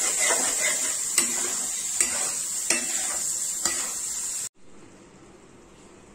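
Onion-tomato masala with spices sizzling in hot oil in a pan while a metal spatula stirs it, knocking and scraping against the pan about four times. The sizzle cuts off suddenly about four and a half seconds in, leaving only a faint hiss.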